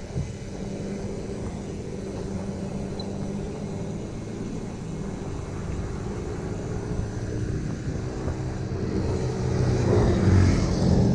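Motor-vehicle traffic on the road: a steady engine hum with road noise, growing louder near the end as a vehicle approaches.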